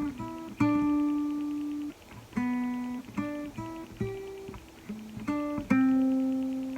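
Acoustic guitar playing a slow melody one note at a time, about a dozen plucked notes that start sharply and ring out as they fade, two of them held for over a second.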